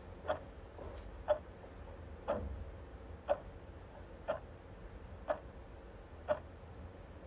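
Clock ticking: one short, sharp tick about every second, evenly spaced.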